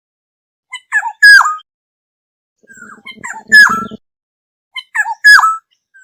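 Black-hooded oriole calling: three short phrases a second or so apart, each of a few quick notes ending in a loud, fluty whistle that slurs downward. The middle phrase has a harsh, buzzy rasp under it.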